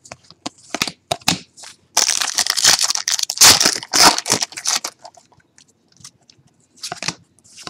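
A trading-card pack wrapper being torn open and crinkled, loud for about three seconds in the middle, with scattered clicks and rustles of cards being handled before and after.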